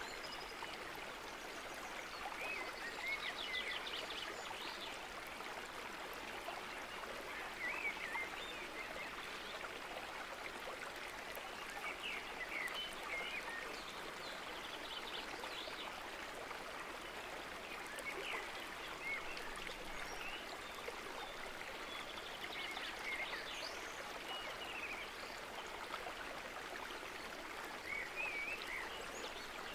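Steady rush of running water like a stream, with short high chirps every few seconds.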